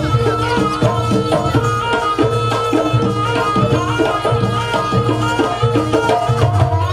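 Traditional Javanese jaranan accompaniment music: hand drums play a busy rhythm under a melody of held pitched notes, with regular low beats.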